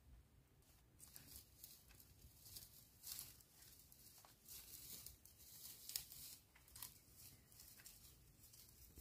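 Near silence with faint, irregular crackling rustles.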